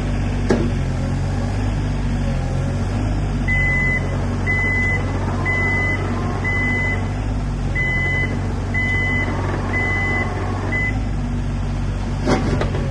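Sany SY35U mini excavator's diesel engine running steadily while the arm and bucket are worked. From about three seconds in, a warning alarm beeps eight times, roughly once a second, and a short sharp knock sounds near the end.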